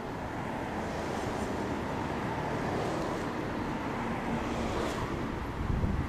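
Steady outdoor background noise of road traffic, with wind on the microphone.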